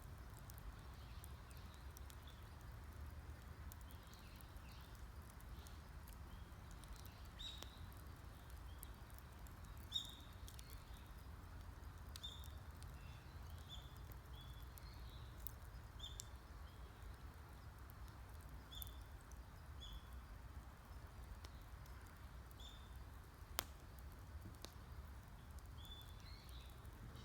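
A wood fire crackling faintly, with two sharp pops about ten seconds in and near the end, while a bird repeats short high chirps every second or so.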